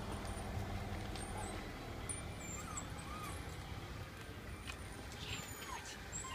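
Steady low hum of an idling vehicle engine, with a few faint, short high squeaks and chirps over it.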